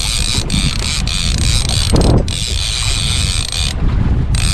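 Okuma SLX trolling reel clicking and whirring as a hooked king mackerel is played, a dense ratcheting rasp that stops briefly several times, over a low rumble. A brief louder knock about two seconds in.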